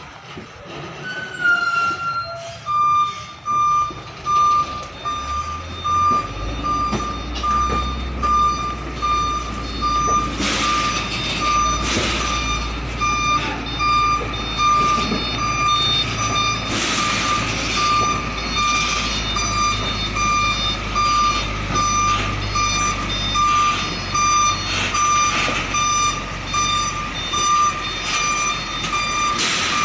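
Container truck's reversing alarm beeping steadily as one evenly repeated tone, over the low running of the truck's engine as it manoeuvres. A few short hissing bursts come through now and then.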